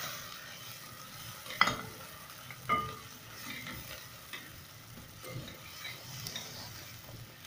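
Sliced onions sizzling in hot oil in a metal pot as they are stirred with a spatula, the onions frying to light brown. The spatula clinks sharply against the pot twice, about one and a half and two and a half seconds in.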